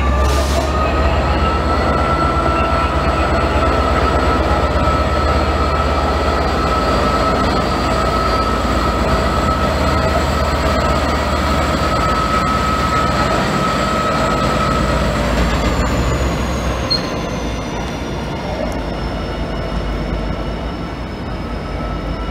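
A diesel-hauled passenger train moving along a station platform, its wheels giving a steady high squeal over the low rumble of the locomotive. The squeal fades about two-thirds of the way through, and one tone falls in pitch as the train draws on.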